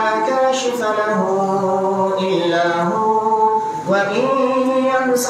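A man chanting Quranic Arabic in melodic recitation, holding long notes that slide between pitches, with a brief breath about four seconds in.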